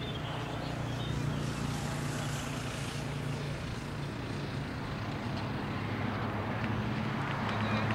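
Steady low hum of a running engine, over general outdoor background noise.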